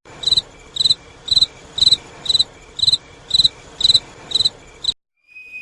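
Insect chirping: about ten short, high-pitched chirps evenly spaced at roughly two a second, which stop abruptly near the end.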